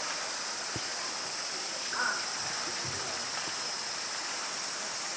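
Steady rushing hiss of running water, with faint voices now and then.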